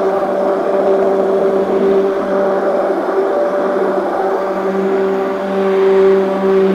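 Stick blender motor running steadily with a constant-pitched hum, its head down in a container of thick black hot-process soap batter, blending the oils and lye.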